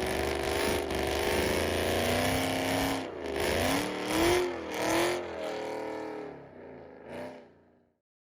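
Ford Mustang Bullitt's 4.6-litre three-valve V8, fitted with long-tube headers and an off-road H-pipe, running with its revs rising and falling several times, then fading away near the end.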